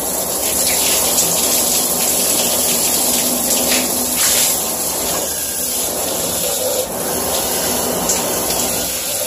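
Water from a handheld shower head spraying and splashing against a plastic pancake batter dispenser, rinsing the batter out of it.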